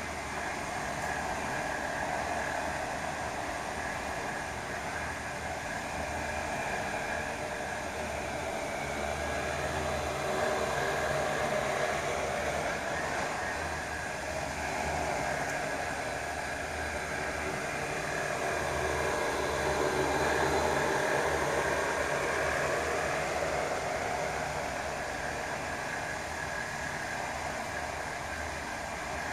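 Motors and propellers of an X8 Renegade multirotor drone hovering, a steady whirring hum with a few held tones that swells and eases slightly a couple of times.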